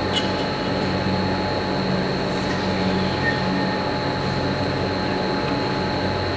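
Steady hum and rumble of machinery in an indoor ice-skating hall, with a constant low drone and a thin high tone held above it.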